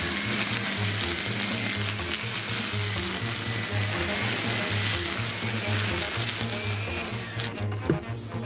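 Electric string trimmer running steadily over background music with a repeating bass line. Near the end the trimmer sound stops abruptly, and a handsaw starts cutting a wooden board in short strokes.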